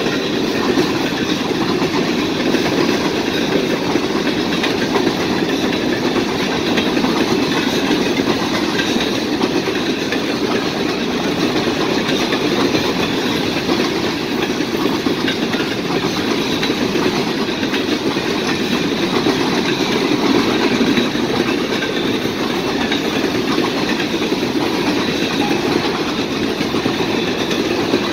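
Freight train of covered hopper cars rolling past at speed: a steady, continuous noise of steel wheels on the rails.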